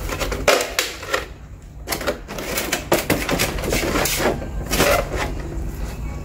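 Handling noise: a run of irregular clicks and light knocks, with a steady low hum underneath.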